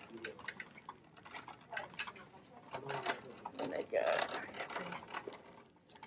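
A plastic shopping cart with a metal frame rattling and clicking as it is pushed along, with many small irregular clatters and a louder stretch about four seconds in.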